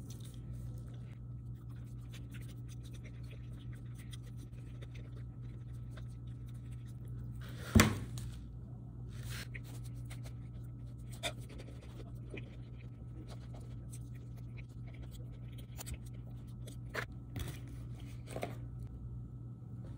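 Salad being eaten and handled: scattered faint clicks and scratches of a fork, a plastic dressing cup and a clear plastic lid, with one sharp knock about eight seconds in, over a steady low hum.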